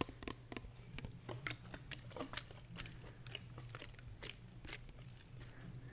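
An irregular string of small, close-up clicks and crackles, a few a second, over a faint steady low hum.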